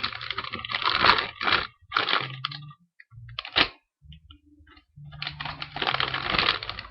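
Packaging rustling and crinkling in irregular bursts as it is handled and unwrapped, with a sharp click about three and a half seconds in.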